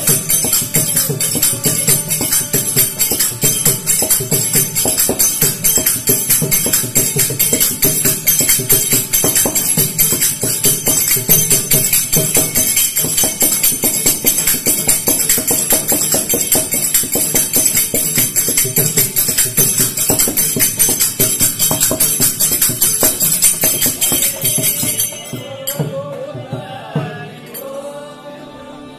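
Devotional group singing with a fast, steady beat of small metal hand cymbals and hand clapping. The cymbals and singing stop about four seconds before the end.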